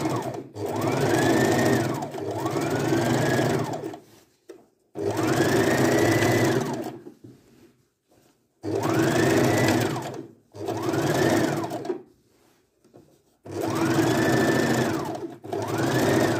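Domestic electric sewing machine stitching a straight seam in about six short runs, the motor speeding up and then slowing down in each, with brief stops between runs.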